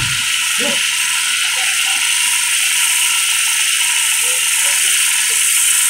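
A steady, loud high hiss with nothing low beneath it, and a few faint short sounds lower down.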